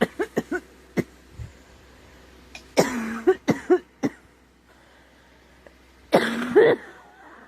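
A girl coughing in fits: a quick run of four short coughs, another a moment later, then two longer, throatier bouts, the loudest, near the middle and toward the end, with a few single coughs between. She puts it down to a scratchy, sore throat from a cold coming on.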